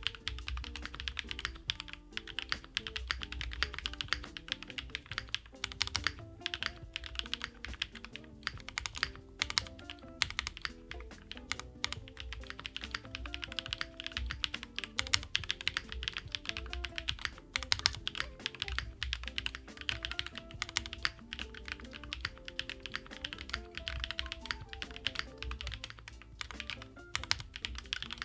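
Fast, continuous typing on a Sakura Studio Fuji 75 mechanical keyboard with an aluminium plate and JWK Night Sakura switches lubed with Krytox 3204: a dense run of sharp keystrokes. Soft background music plays underneath.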